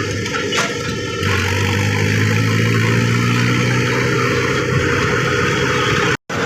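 Tractor's diesel engine running steadily on the road, with a low hum that comes in about a second in. The sound cuts out for a moment near the end.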